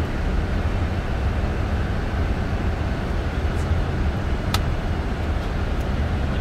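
Steady rumble of airflow and engines heard in a Boeing 747-400 cockpit on final approach, with one sharp click of a panel button about four and a half seconds in.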